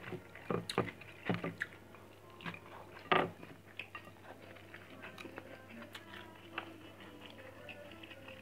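A person chewing a mouthful of rice and grilled fish eaten by hand, close to the microphone. Scattered sharp mouth clicks run through it, the loudest about three seconds in.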